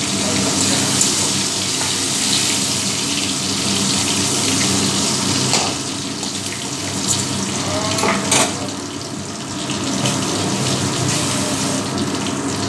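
Hot mustard oil sizzling steadily in a metal kadai as fried prawns are lifted out, with a couple of brief scrapes of the spatula against the pan about halfway and two-thirds of the way through.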